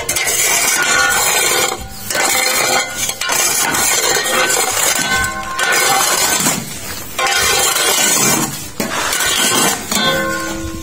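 Metal leveling bar scraping and spreading gritty concrete block mix across the steel mould of a manual block press, in repeated strokes broken by short pauses. Background music plays throughout.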